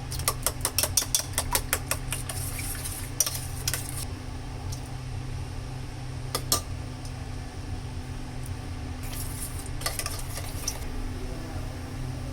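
Eggs beaten with a fork in a bowl: a quick run of rapid clinking strokes for about two seconds, then a few scattered clinks and scrapes of kitchenware over a steady low hum.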